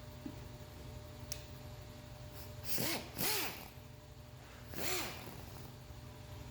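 A power drill run in three brief trigger bursts, each spinning up and winding straight back down, the middle two close together.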